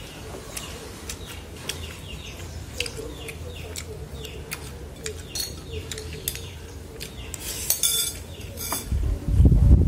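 Wooden chopsticks clicking and scraping against a ceramic rice bowl and plate while eating, with birds chirping in the background. Near the end a low rumble comes in, louder than anything else.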